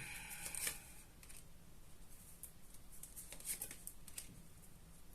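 Tarot cards being handled: faint scattered rustles and light clicks as the deck is shuffled and cards are drawn, with a cluster about half a second in and more around three and a half seconds.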